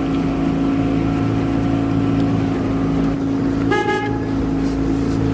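Small rented motorboat's engine running steadily underway, with a brief high toot about four seconds in.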